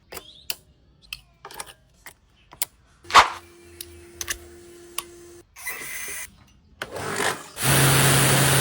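A series of short clicks and knocks and a brief steady hum. Near the end comes about a second of loud, steady spray noise over a low motor hum from an electric pressure washer with a crankshaft pump, which cuts off sharply.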